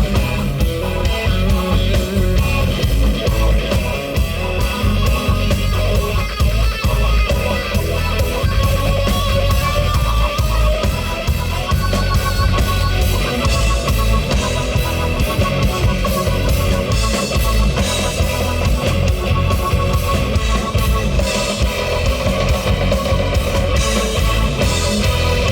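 Live rock band playing an instrumental passage: distorted electric guitar over bass and drum kit, with a steady beat and no vocals.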